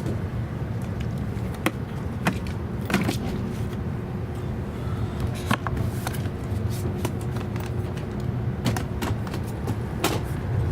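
Inside a JR East E259 series Narita Express train running at speed: a steady low rumble of the wheels on the rails, broken by frequent sharp clicks and knocks, with a faint steady hum for several seconds in the middle.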